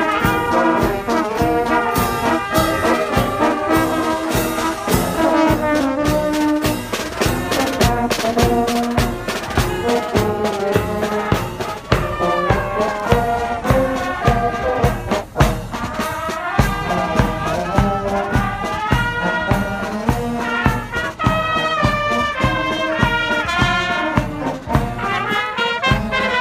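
Brass band playing a march: trumpets, saxophones and low brass carrying the tune over a steady bass drum beat.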